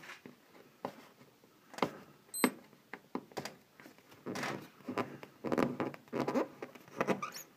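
Heat-softened vinyl registration decal being peeled by hand off a snowmobile's body panel: a series of short, irregular rasping pulls and rubs as the fingers lift and strip the sticker away from its warm adhesive.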